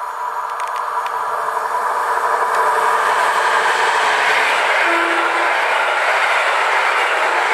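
Two coupled EN57AL electric multiple units approaching and passing close by. A rush of wheels on rail grows louder over the first three seconds, then holds steady as the carriages go by. A steady faint whine fades as the train draws level, and a short low tone sounds about five seconds in.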